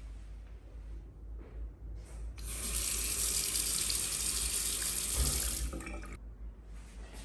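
Water from a single-lever mixer tap running into a bathroom basin. The tap is turned on about two and a half seconds in, runs steadily for close to four seconds, and is shut off sharply.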